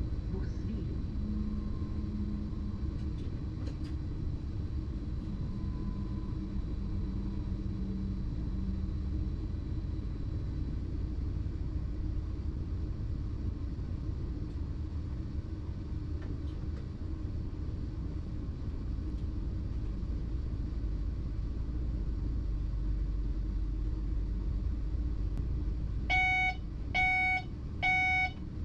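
Steady low rumble of a BLS RABe 515 'MUTZ' double-deck electric multiple unit running, heard from the driver's cab. Near the end, an electronic tone beeps three times, about one beep a second.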